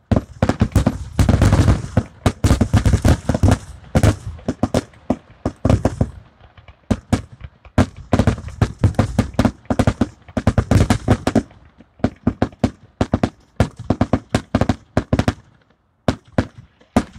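Fireworks finale barrage: rapid, overlapping booms and crackling bangs fired in quick succession. The barrage thins out near the end, with a last few bangs just before it stops.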